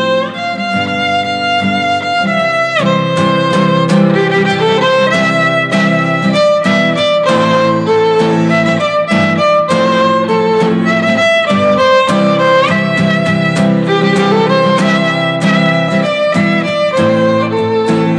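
Violin playing a lyrical melody in long held notes, sliding between notes a few times, over rhythmic acoustic guitar chords.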